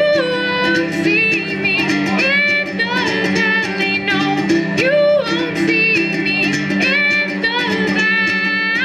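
A woman sings live into a microphone, accompanying herself on a strummed ukulele with a steady strumming rhythm.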